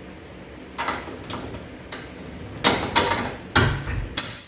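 Metal clicks and knocks from work on a truck's lower shock mount: the shock bolt is pushed through and fitted. The knocks come irregularly, with a heavier thump a little past the middle.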